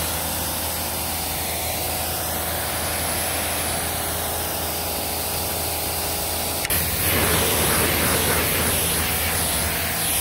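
Kranzle 1122 electric pressure washer running, its motor and pump humming steadily under the hiss of the water jet rinsing foam off a car. About two-thirds in, after a click, the spray's hiss changes and grows a little louder.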